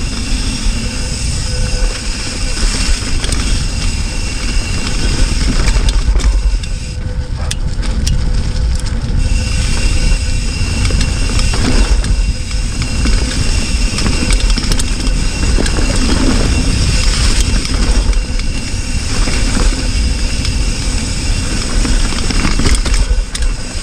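Hardtail mountain bike descending a dirt trail at speed, with steady wind rumble on the action camera's microphone and the rush and rattle of tyres and bike over the ground.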